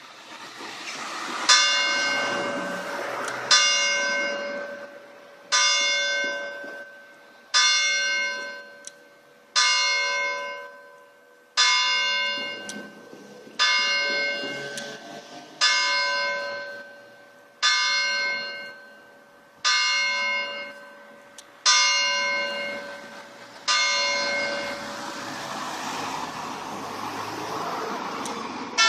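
A single church bell struck twelve times by a hammer, one stroke about every two seconds, each stroke ringing and fading before the next. This is the tower clock's hour bell, cast by Picasso in 1945, striking noon.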